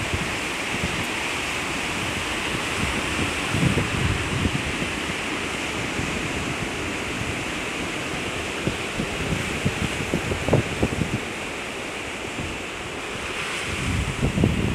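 Wind buffeting the microphone in gusts over a steady rush of ocean surf.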